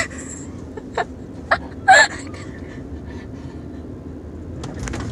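A few short giggle-like vocal bursts from the people in the car, the loudest about two seconds in, over the steady low rumble of the car driving.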